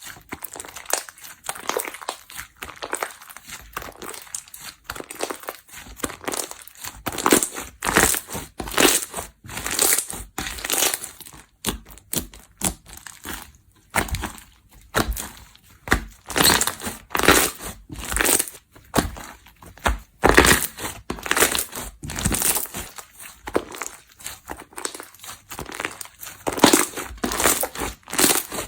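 Slime being squeezed, poked and stretched by hand, giving a dense run of crackling, crunching and popping noises that come in irregular clusters, louder in some stretches than others.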